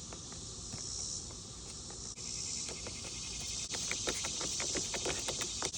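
Steady high chirring of insects, with a quick run of small plastic clicks and rattles about halfway through as the mower's air filter cover is fitted back on.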